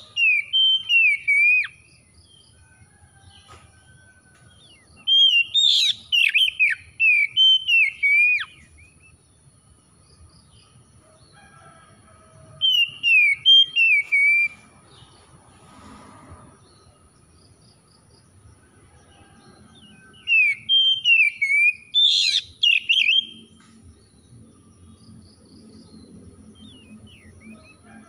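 Caged Oriental magpie-robin singing in four bouts of loud, varied whistled phrases with quiet gaps of several seconds between them.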